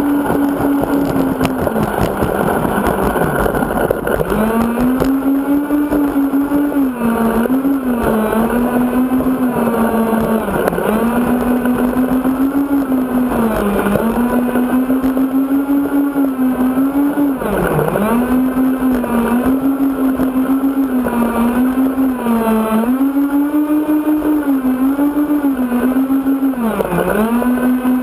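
Twin 70 mm electric ducted fans of an RC Apprentice model plane running at low power on the ground, their whine dipping in pitch and climbing back again and again as the throttle is eased off and opened up.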